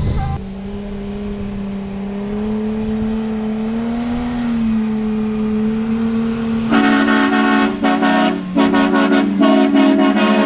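An engine drones steadily under load, rising slightly in pitch about four seconds in. From about seven seconds a vehicle horn sounds in a series of short, choppy blasts.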